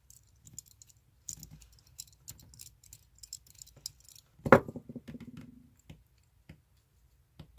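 Small metal clicks and rattles of a screw being undone on a tattoo machine, then one sharp knock about four and a half seconds in that rings for about a second.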